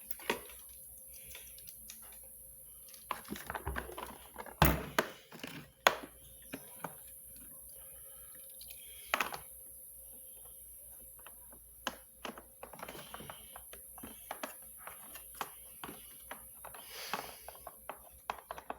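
Scattered clicks, taps and knocks of parts and tools being handled during a vacuum cleaner repair, with two louder knocks about five and six seconds in, over a steady hiss.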